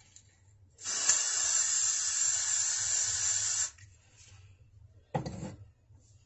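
Schwarzkopf got2b Glued hairspray aerosol can spraying onto hair in one steady hiss of about three seconds, followed by a short half-second burst about five seconds in.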